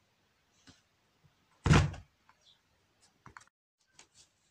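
A single heavy thunk just under two seconds in, then a few light clicks and taps of things being handled.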